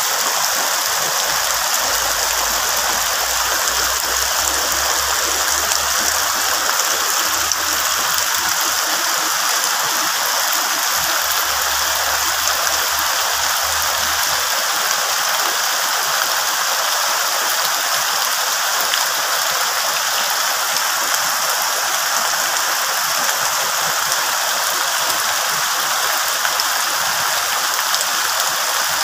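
Heavy rain falling steadily on broad leaves and wet ground, a dense, even hiss that does not let up.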